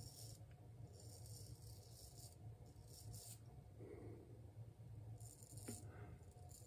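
9/8-inch ArtRazor straight razor scraping through lather and stubble on the cheek, in a series of short, faint rasping strokes.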